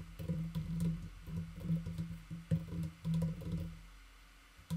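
Computer keyboard typing: a quick run of keystroke clicks with dull thumps, stopping shortly before the end.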